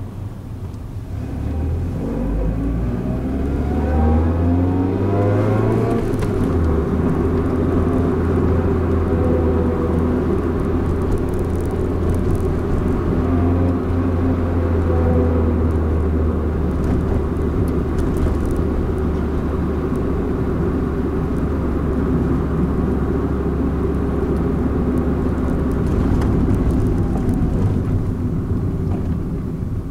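Toyota AE111 Corolla Levin's engine and road noise heard from inside the cabin: the engine pitch rises for the first few seconds as the car pulls away, then settles into a steady low drone while cruising, easing off near the end.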